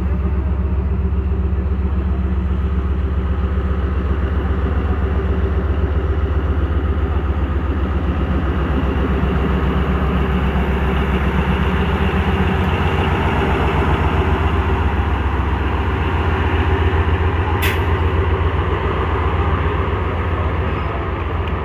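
ZCU-30 diesel-electric locomotive pulling a passenger train out of the station, its engine a steady loud drone, with the train's wheels rolling past in a faster, even rhythm over the second half. A single sharp click sounds a few seconds before the end.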